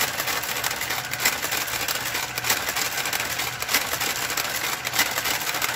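Brother electronic knitting machine carriage, driven by its motor, running along the needle bed: a steady mechanical clatter of needles and cams, with a sharper click about every second and a quarter.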